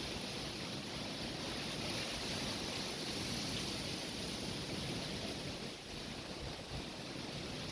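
Strong wind blowing in a steady rushing noise, dipping briefly about six seconds in.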